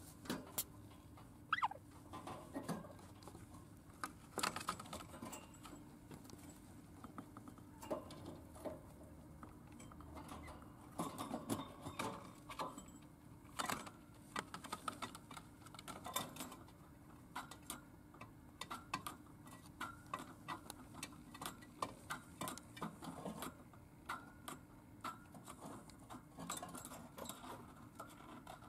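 Lutino budgerigar moving about its wire cage: irregular small clicks, taps and scrapes of beak and claws on the bars and floor, with a short rising chirp near the start. A faint steady hum runs underneath.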